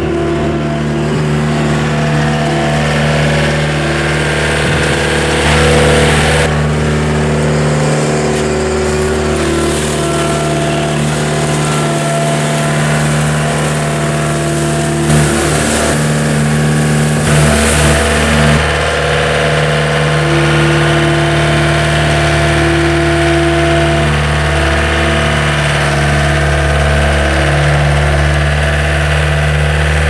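John Deere skid steer's diesel engine running and revving as it works, scooping cob corn from the crib and carrying it up to the wagon. A stretch of louder rushing, rattling noise runs from about six to seventeen seconds in while the bucket works the corn.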